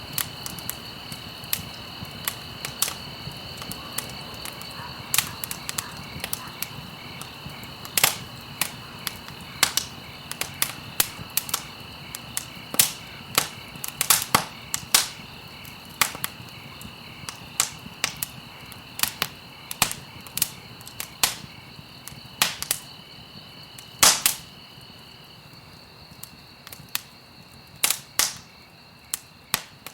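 Wood fire crackling, with irregular sharp pops and snaps over a low steady hiss of burning logs. The loudest pops come about 8 and 24 seconds in, and a faint steady high tone runs underneath.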